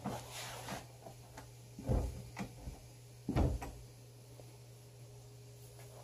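A few dull clunks and knocks from the metal parts of an old Atlas TH42 lathe being handled, loudest about two and three and a half seconds in, over a steady low hum.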